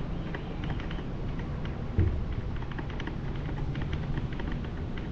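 Footsteps tapping on a concrete quay over a steady low rumble, with a single thump about two seconds in.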